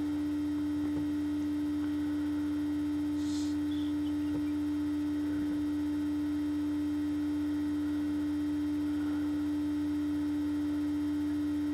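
Steady electrical hum: one constant tone with a fainter lower drone beneath it, unchanging in level.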